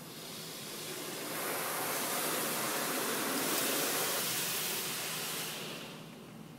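Car wash water spray passing over the car, heard from inside the cabin: a hiss that swells over the first second or so, holds, then fades away about six seconds in.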